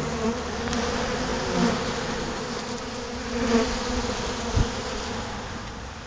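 Honey bees buzzing in a steady hum as they crowd a hive-top sugar-syrup feed bottle, with two bees passing close by in louder brief buzzes. A single soft thump about three-quarters of the way through.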